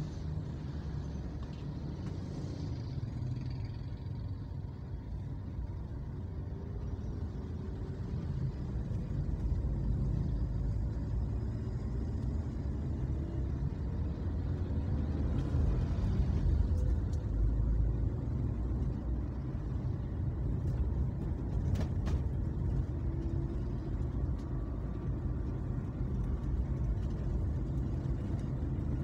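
Car driving along a city street: a steady low rumble of engine and road noise, growing louder about eight seconds in as it picks up speed. A single sharp tick sounds near the end.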